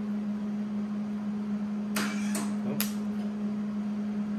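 MIG welder humming steadily, with three short, sharp crackles close together about two seconds in.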